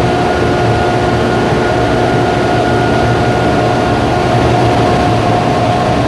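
Industrial machinery of a Tamglass glass tempering furnace running steadily: a loud, even rush of air with a steady whine and a low hum, typical of large blowers.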